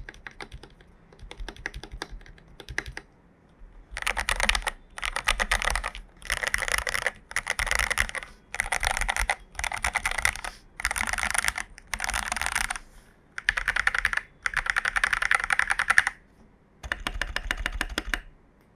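AKKO 5075B mechanical keyboard with lubed Jelly Black linear switches being typed on: a few scattered keystrokes, then repeated fast bursts of typing about a second long, each separated by short pauses.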